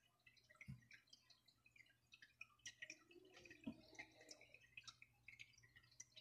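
Near silence, with faint scattered light ticks and taps from fingers placing and nudging thin carved carrot pieces on a ceramic plate.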